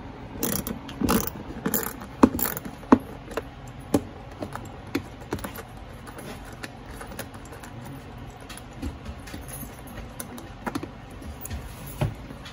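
Hand ratchet and socket clicking and clinking as the plastic panel's mounting bolts are loosened: an irregular run of sharp metallic clicks, loudest in the first three seconds and sparser after.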